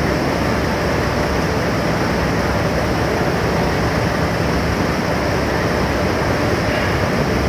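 Steady, loud machinery noise with a low hum underneath, unchanging throughout.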